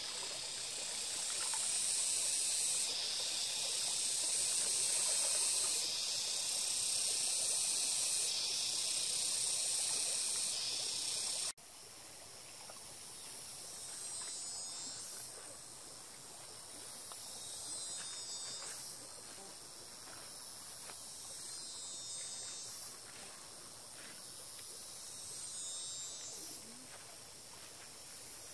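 Insect chorus in tropical forest: a loud, steady high-pitched buzz that drops suddenly about eleven seconds in, then goes on more quietly, swelling and fading every few seconds.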